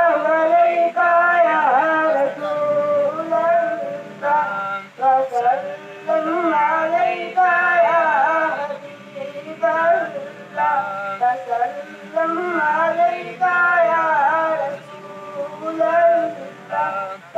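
A boy singing a naat, an Urdu devotional poem in praise of the Prophet, solo without instruments. The voice comes in long, ornamented phrases with short breaks for breath about every five seconds.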